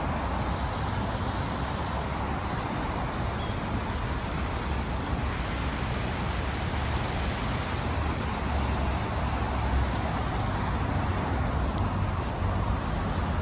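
Steady road traffic noise: an even hiss with a low rumble underneath, no single vehicle standing out.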